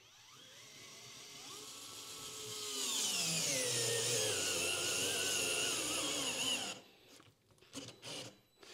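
DeWalt DCF682N1 8V gyroscopic cordless screwdriver driving a 3-inch Torx construction screw into a 2x4. The motor whirs, growing louder and dropping in pitch as the screw goes deeper, and stops about seven seconds in with the screw most of the way through but not fully driven. A couple of faint knocks follow near the end.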